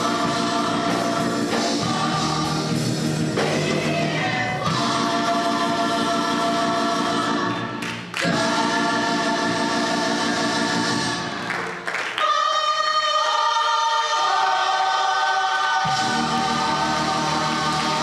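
Gospel choir singing long held chords with instrumental accompaniment, pausing briefly between phrases. Past the middle the low accompaniment drops away for a few seconds, leaving the voices, and comes back near the end.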